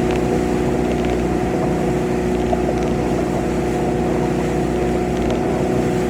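Boat engine running steadily under way, a constant drone that holds one pitch.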